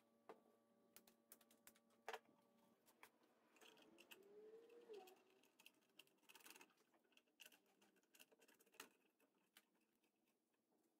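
Near silence, broken by faint scattered clicks and taps of a plastic speaker enclosure being handled and fitted against a golf cart's roof support. A brief faint squeak rises and falls near the middle.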